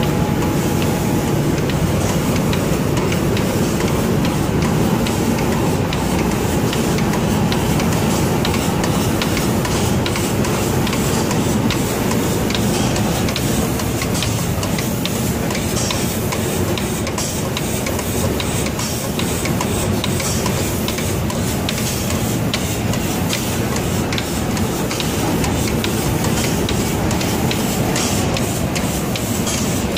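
Automatic kitchen-cabinet-door spray-painting machine running: a steady mechanical din with hissing from the spray guns and faint, irregular ticks.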